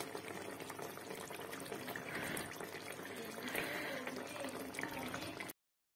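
Fish curry gravy simmering in a pan: a steady bubbling with small pops and crackles, cutting off suddenly near the end.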